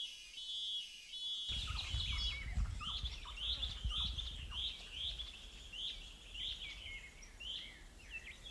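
A bird calling over and over, a short chirp that rises and falls, about twice a second. Low outdoor background rumble comes in about a second and a half in.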